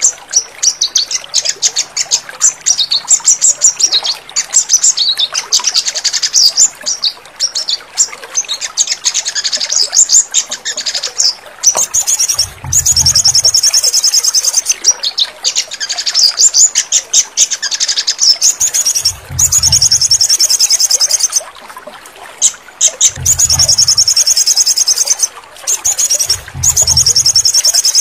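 Crimson sunbird (sogon) song: rapid, high chirping notes, broken by long, fast, buzzy trills a few seconds each, four of them in the second half. A faint low hum sounds under each long trill.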